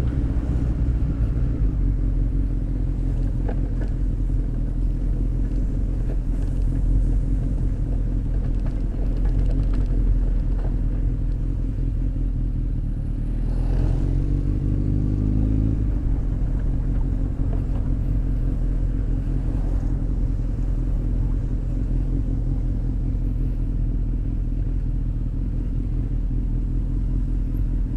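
Honda X4's inline-four engine and exhaust running under way, with a steady low rumble of wind and road. About 13 seconds in, the engine note climbs as it accelerates, then settles back to a steady run.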